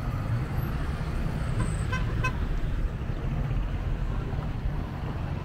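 Road traffic running past close by, with two quick toots of a vehicle horn about two seconds in.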